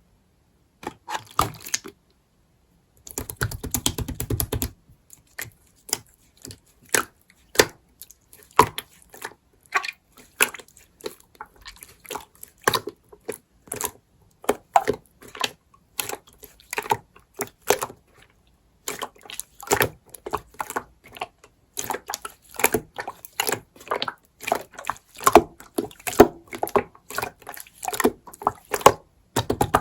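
Slime being squeezed, pressed and stretched by hand, giving an irregular run of short clicks and pops, with a denser stretch of squishing about three seconds in.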